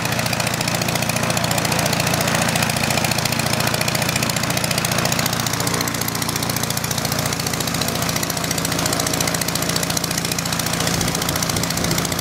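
Piston engines of the replica Port Victoria PV8 Eastchurch Kitten and SE5a, First World War fighters, running steadily with an even firing beat.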